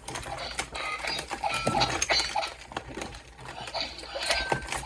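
Plastic Akedo battle figures clacking and knocking against each other in a toy battle arena, a rapid irregular clatter, mixed with short electronic beeps and sound effects from the toy.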